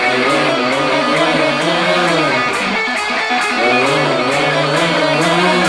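Band music led by electric guitar over a bass line and a steady beat.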